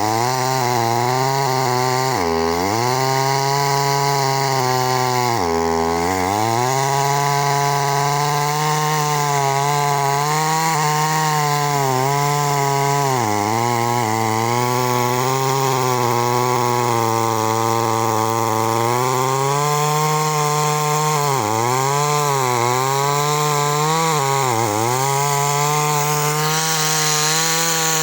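Two-stroke chainsaw running at high revs while cutting a tree. Its engine note dips sharply and recovers twice in the first few seconds, then several more times in the second half, as it comes under load.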